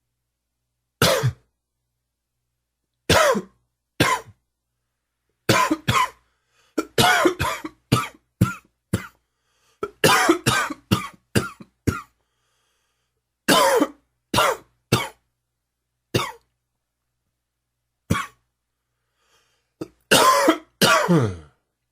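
A man's harsh, hacking smoker's cough, worked up by heavy smoking: single coughs and rapid runs of several coughs, with silent pauses between the bouts.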